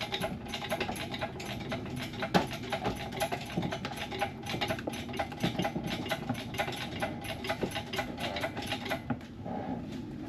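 Rapid, steady mechanical clicking, several clicks a second, over a faint steady hum.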